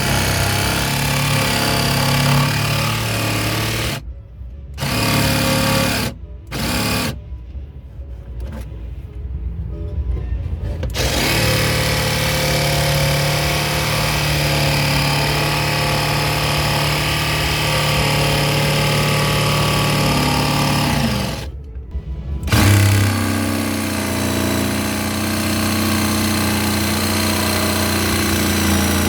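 Electric jigsaw cutting out a speaker hole, its motor buzzing in stretches with a few short stops and restarts. The pitch shifts after the stop about 22 seconds in.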